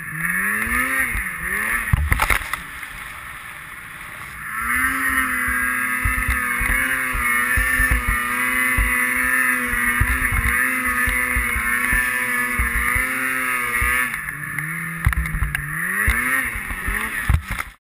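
Snowmobile engine revving: it rises and drops quickly, eases to a quieter stretch, then holds high revs for about ten seconds before dropping and revving up again near the end. Scattered low thumps run through it.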